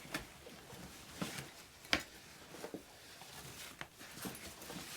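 Outdoor gear being handled by hand: light rustling of fabric and packing, with a few small clicks and taps, the sharpest about two seconds in.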